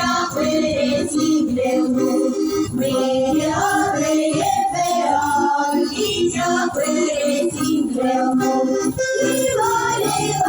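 Sami folk ensemble performing a song: several voices singing a flowing melody over instrumental accompaniment, with a light jingling percussion.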